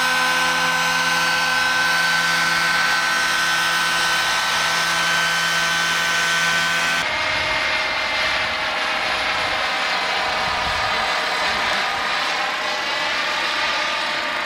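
Radio-controlled model helicopter hovering low, its engine and rotor making a steady whine. About seven seconds in, the sound cuts abruptly to a second model helicopter flying overhead, its note wavering up and down in pitch.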